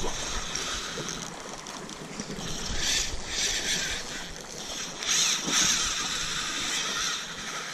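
Spinning reel's drag giving line in surges, loudest about three seconds and five seconds in, as a hooked fish makes a run against it. Sea wash at the rocks hisses underneath.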